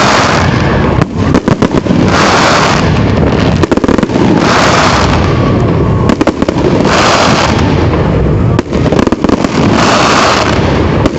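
Fireworks display going off in a continuous, loud barrage of bangs and crackles, with a bigger swell of sound every couple of seconds.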